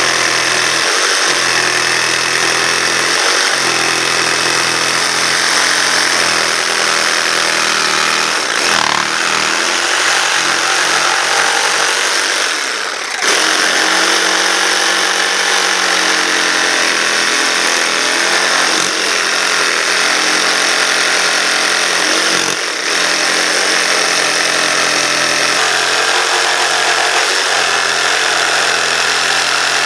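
Ryobi 18V cordless jigsaw running steadily as its reciprocating blade saws through a timber plank, with a brief drop in the cutting noise about 13 seconds in and another near 23 seconds.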